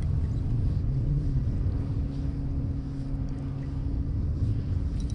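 A boat motor running steadily with a low hum, with wind buffeting the microphone.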